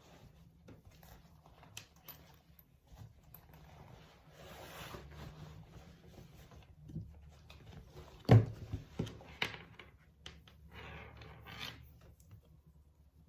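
Rustling and rubbing of objects being handled, with one sharp knock about eight seconds in followed by a few lighter knocks.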